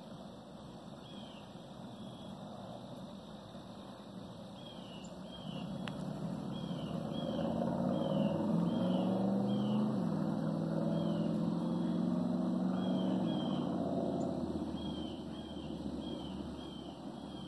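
A distant engine, likely a passing vehicle, grows louder over a few seconds, drops slightly in pitch about halfway through, then fades. Short high chirps repeat about twice a second throughout.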